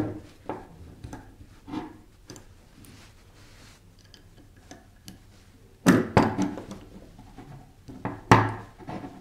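Small steel parts of a Zenitco RP-1 charging handle, a hex key and an AK-74M bolt carrier clicking and knocking against each other and the tabletop as the handle is assembled. These are a few scattered knocks, the loudest near the start, about six seconds in and about eight and a half seconds in.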